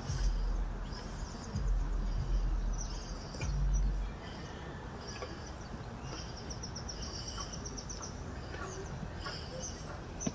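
Outdoor ambience of high-pitched chirps and rapid trills from wild birds or insects, repeating on and off. A low rumbling on the microphone runs through roughly the first four seconds.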